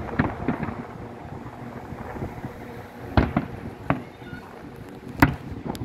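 Aerial fireworks going off in separate sharp bangs, a few small pops near the start and the two loudest reports about three seconds in and about five seconds in, over a steady low rumble.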